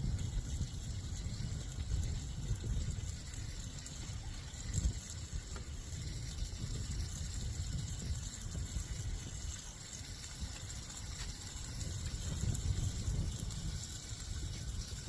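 Gusty wind buffeting the microphone, a low uneven rumble that swells and eases, over a steady high hiss.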